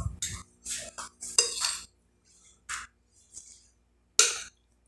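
Metal spoon scraping and clinking against a glass bowl of rice and stew, in about half a dozen short strokes with pauses between, the loudest about four seconds in.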